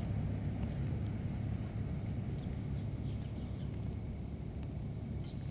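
Car engine idling steadily with a low hum, and a few faint bird chirps later on.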